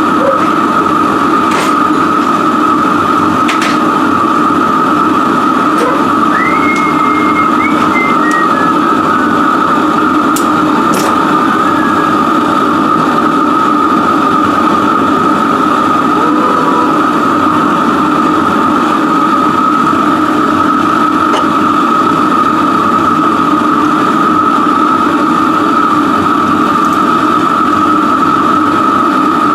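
Four propane burners of a homemade gas forge burning steadily: a loud, even rushing noise with a constant tone in it. A few light clicks sound in the first dozen seconds.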